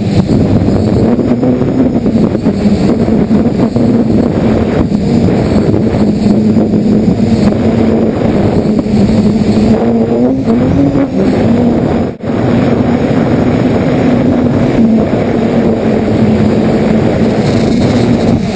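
DJI F550 hexacopter's motors and propellers running in flight, recorded from the onboard camera: a steady humming drone mixed with rushing air noise. The pitch wavers up and down briefly around the middle, and the sound dips for an instant about two-thirds through.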